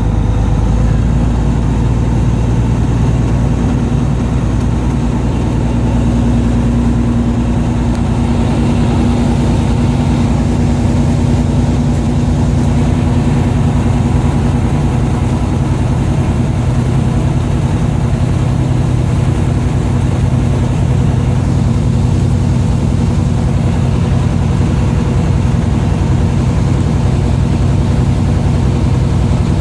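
Fishing boat's engine running steadily: a continuous low drone with a steady hum.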